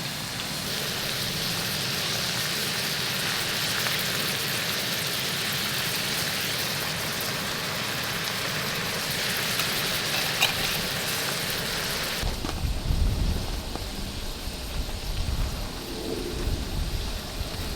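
Squid and beef brisket sizzling as they stir-fry in a pan, a steady hiss. About two-thirds of the way through the sizzle drops away and an irregular low rumble takes over.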